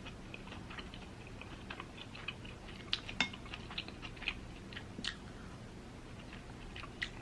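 Quiet eating sounds: scattered small clicks and taps of chewing and utensils, with a few sharper clicks about three and five seconds in.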